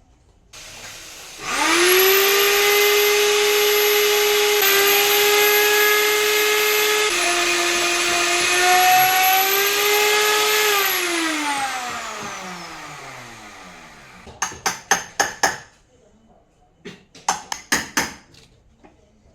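Electric power tool motor spinning up quickly and running at a steady whine for about nine seconds, its pitch dipping a little twice, then switched off and winding down over a few seconds. Two quick runs of sharp knocks follow near the end.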